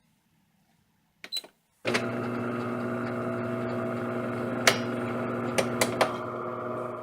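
DeLonghi Magnifica S bean-to-cup coffee machine starting up: a short click just after a second in, then from about two seconds its motor runs with a steady hum, with a few sharp clicks over it in the second half.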